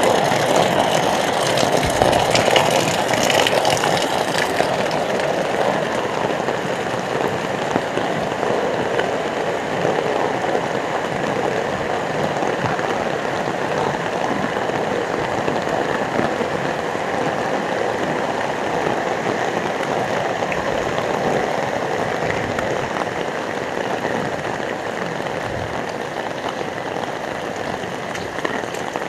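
Heavy rain falling steadily as a dense, even hiss, a little louder and brighter for the first few seconds, then easing slightly toward the end.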